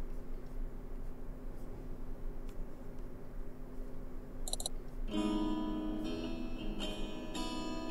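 Quiet room hum with a few soft computer-mouse clicks, including a quick double-click about four and a half seconds in. About five seconds in, plucked acoustic guitar music starts and carries on.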